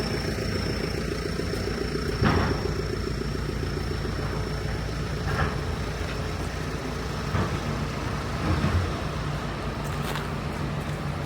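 An engine running steadily at a low, pulsing idle, with a few short knocks over it.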